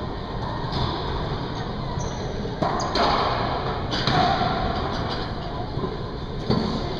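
Racquetball rally: sharp smacks of the ball off racquets and walls, a cluster of hits from about two and a half to four seconds in and one more near the end, each echoing around the enclosed court.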